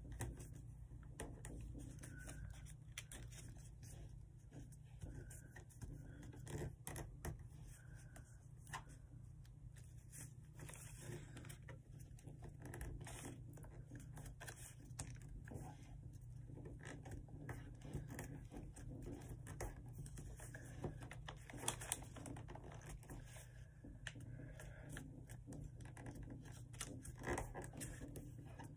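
Paper being folded and creased by hand: irregular crinkles, scrapes and small clicks over a steady low hum.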